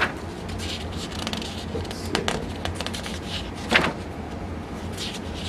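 Paper pages in a three-ring binder being turned by hand: a few brief papery swishes over a steady low hum.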